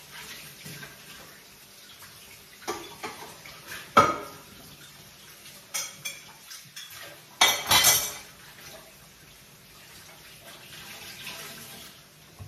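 Dishes and cutlery clattering in a kitchen sink: a run of sharp knocks, the loudest about four seconds in, with a short burst of running water near eight seconds.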